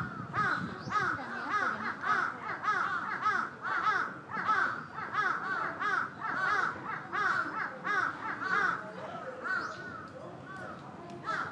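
A chorus of many overlapping animal calls, each a short rise and fall in pitch, repeated several times a second and thinning out near the end.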